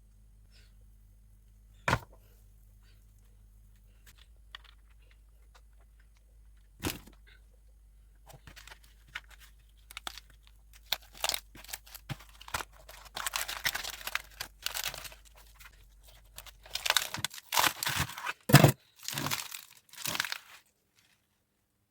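Crisp iceberg lettuce leaves being torn and crackling as they are handled. A few isolated taps come first, then dense crackling for the last ten seconds or so, loudest near the end.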